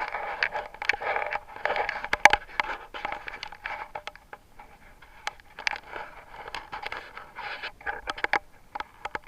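Camera handling noise: scraping and rustling against the microphone with many sharp clicks and knocks as the camera is moved and set in place, loudest in the first few seconds and fainter after.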